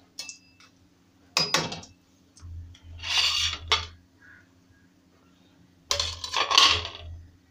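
Steel kadai and metal utensils clattering and scraping on a gas stove while whole spices fry in mustard oil: a sharp clink about a second and a half in, then two spells of scraping and rattling, around three seconds and again around six seconds.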